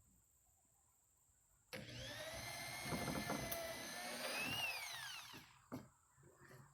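Corded electric drill starting up a little under two seconds in and running for about three and a half seconds as it drills a hole through a wooden board, its whine rising and falling before it winds down. A single click follows.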